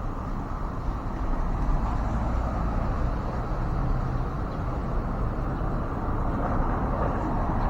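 Steady low rumble with a hiss of background noise, getting a little louder about a second in, with no bird calls.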